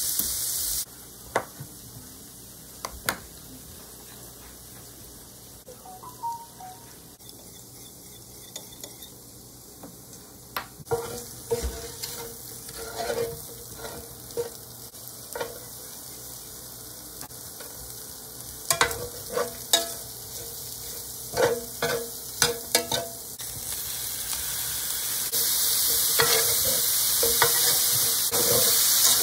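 Shrimp sizzling in an electric skillet, with tongs and a wooden spatula clicking and scraping against the pan as they are turned and stirred. The sizzling is louder for the last few seconds.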